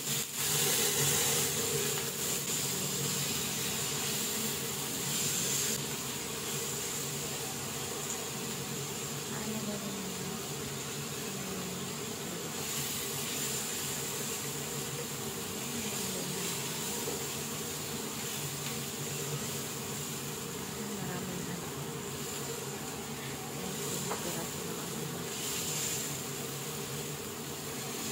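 Chicken wings and chopped onion sizzling steadily in hot oil in a wok as they are sautéed, a loud, even hiss.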